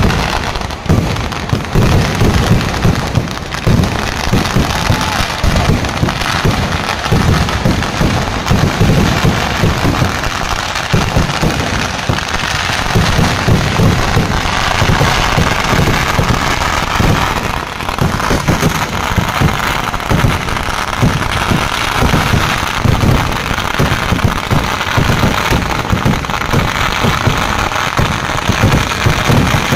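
A continuous fireworks barrage: firecrackers and shells exploding many times a second with no gaps, heavy low booms under a dense crackle.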